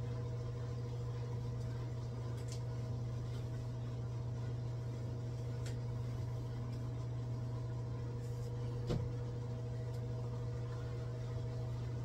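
Steady electrical hum of an induction cooktop heating a frying pan: a low drone with a faint higher whine over it. One light click comes about nine seconds in.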